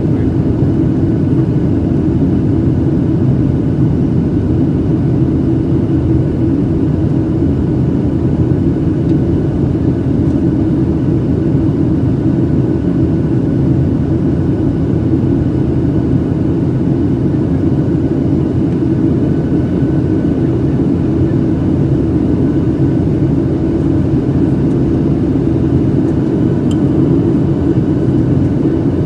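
Steady roar inside the cabin of a Boeing 737-800 climbing out after takeoff: its two CFM56-7B engines and the rush of air over the fuselage, a deep even rumble with a faint steady whine above it.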